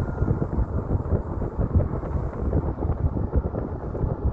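Low road rumble from a moving car, with wind buffeting the microphone in uneven gusts.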